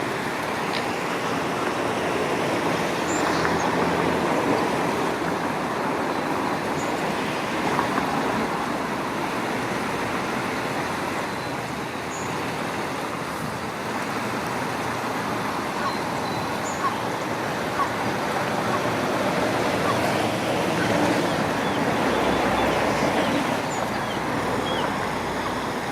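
Steady outdoor rushing background noise, with a few short high chirps here and there.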